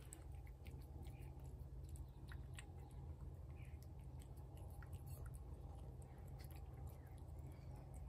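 A cat chewing food from a plate, faint chewing with small scattered clicks over a steady low hum.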